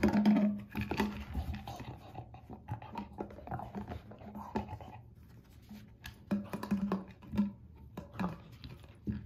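A dog nosing and pawing a hard plastic blender bottle across carpet: scattered clicks and knocks of the bottle, with the last couple of food pellets rattling inside, and the dog panting.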